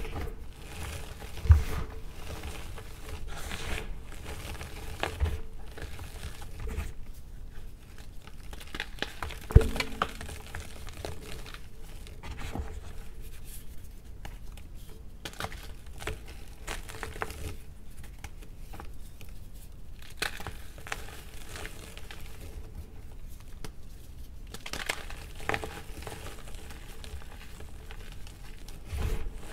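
Blocks of gym chalk crunching and crumbling between the fingers into loose chalk powder: a steady run of small dry crackles, with two sharper knocks, one near the start and one about ten seconds in.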